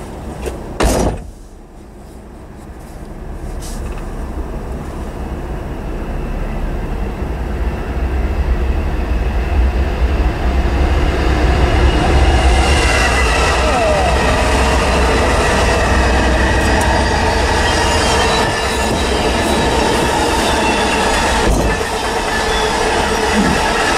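Norfolk Southern intermodal freight train approaching and passing: diesel locomotive rumble growing louder over about ten seconds, then the steady rattle of the passing cars with high-pitched wheel squeal. A sharp knock about a second in.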